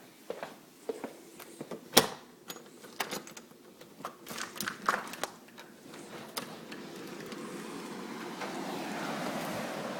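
Footsteps and knocks of someone moving around, the loudest a sharp click about two seconds in. From about seven seconds in, a steady rush of blizzard wind builds on the microphone.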